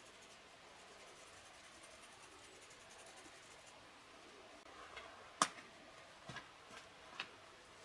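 Faint scratching of a knife blade scraping fine tinder on a rock, then four short, sharp metallic scrapes about a second apart as a ferro rod is struck with the knife, the first of them the loudest.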